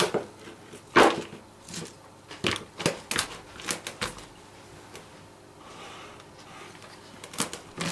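Shredded raw cabbage rustling and crunching as handfuls are scooped from the counter and packed down into a plastic bucket. Short crisp strokes come in a run, the loudest about a second in, then fall quiet for a while before two more near the end.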